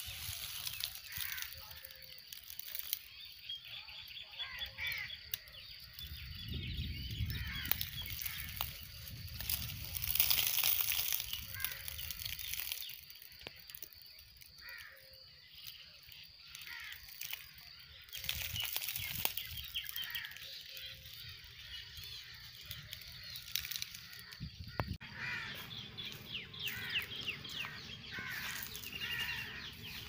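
Parakeets calling with many short, repeated chirps and squawks, thickest at the start and again near the end. Twice in the middle, a rush of rustling noise rises above the calls.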